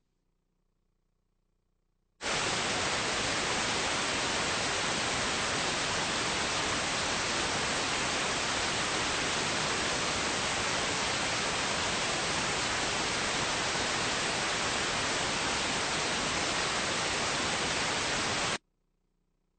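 Steady static hiss on a video transfer's audio while the picture is black and no programme signal is playing. The hiss starts suddenly about two seconds in and cuts off sharply near the end.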